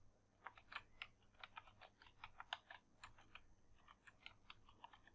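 Faint typing on a computer keyboard: a quick, irregular run of key clicks starting about half a second in.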